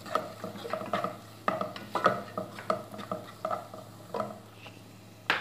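Wooden spatula stirring and scraping onions and prawns frying in oil in a nonstick pot, about two strokes a second, easing off after about four seconds, then a sharp knock near the end.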